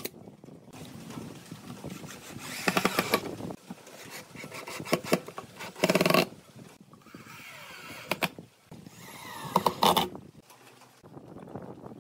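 Cordless drill driving screws into pine boards, its motor whining in three short bursts about three, six and ten seconds in, with handling noise between them.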